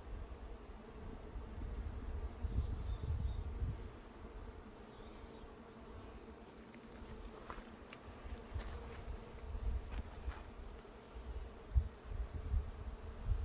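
Honeybees buzzing steadily around an open hive, with gusts of wind rumbling on the microphone and a few light clicks about halfway through.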